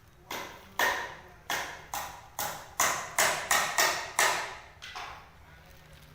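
A run of about eleven sharp taps or knocks, unevenly spaced over some four and a half seconds, each with a short ring after it; the first and last are softer.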